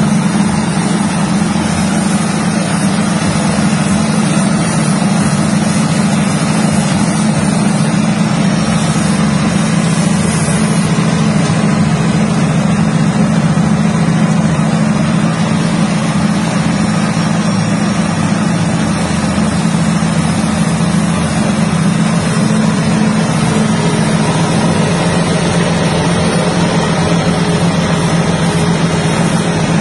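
Peanut shelling machine running steadily while it hulls peanuts: a constant motor drone with an even, gritty noise of the pods passing through.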